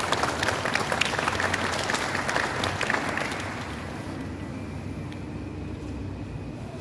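A small group of people applauding; the clapping dies away about three and a half seconds in, leaving a steady low hum.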